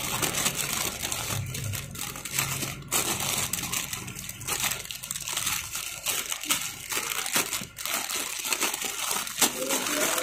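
Thin clear plastic bag crinkling and rustling as hands pull it open and work a toy plane out of it.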